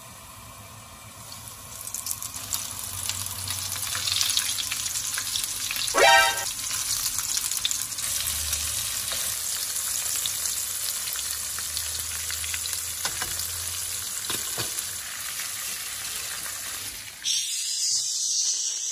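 Battered crayfish pieces frying in hot oil in a pan, a steady sizzle that grows louder about two seconds in. A brief pitched sound cuts in about six seconds in, and the sizzle turns harsher near the end.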